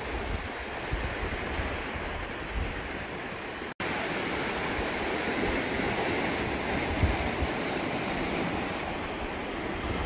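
Small Mediterranean waves washing and breaking over shoreline rocks, a steady surf wash, with a momentary dropout in the sound nearly four seconds in.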